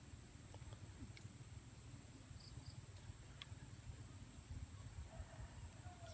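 Near silence: faint outdoor ambience with a steady high-pitched whine and a low rumble, and a few faint ticks.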